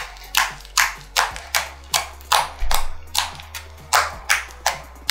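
Fluffy slime popping and crackling as fingers press into it, air pockets bursting in crisp snaps about two to three times a second, with a steady low music bed underneath.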